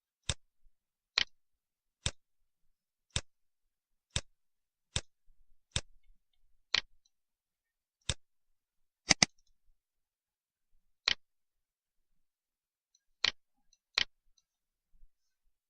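Computer mouse buttons clicking: single sharp clicks roughly once a second, with a quick double click a little past halfway and a short pause after it.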